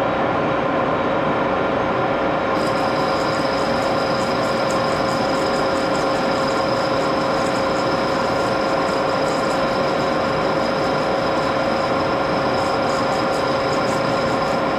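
Axelson lathe running steadily with a constant gear hum. About two and a half seconds in, a high whine with fine crackling joins, as the tool starts cutting the aluminum part.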